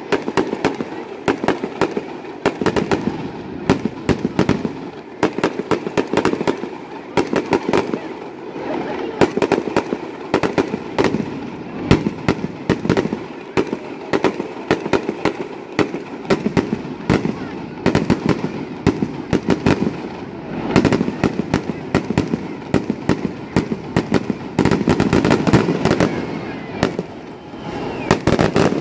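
Fireworks display: aerial shells bursting in a rapid, irregular string of bangs and pops, several a second, with a denser stretch near the end.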